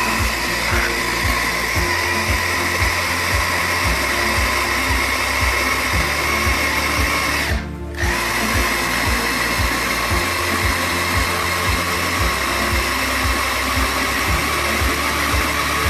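Electric food chopper motor running steadily as it purées vegetables with liquid. It cuts out for about half a second midway, then runs again. Background music with a steady beat plays underneath.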